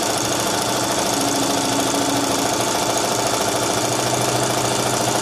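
Singer Heavy Duty electric sewing machine running steadily at speed, its needle stroking rapidly as it sews a straight stitch.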